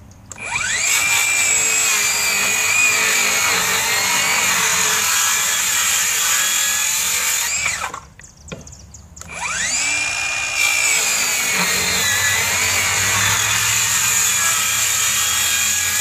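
Ridgid Gen5x brushless cordless circular saw with a Diablo 40-tooth blade making two cuts through a pressure-treated 2x12. Each time the motor whines up to speed and the blade then cuts through the wood for about seven seconds; the first cut stops abruptly about eight seconds in, and the second starts a second and a half later.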